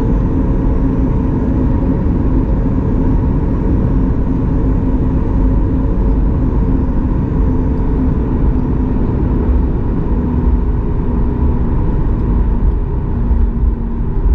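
Boeing 737 MAX 8's CFM LEAP-1B jet engines running steadily, heard from inside the cabin: a loud low rumble with a few steady humming tones that hold their pitch.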